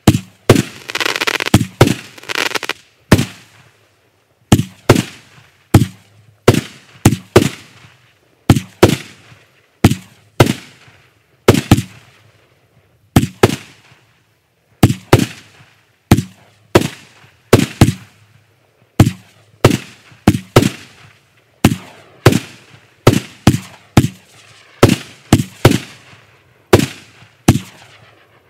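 Kimbolton Fireworks 'Blockbuster' single-ignition cake firing shot after shot: an uneven string of sharp bangs, about two a second, each trailing off briefly, with a short pause about halfway through. A noisy haze sounds under the bangs in the first two seconds.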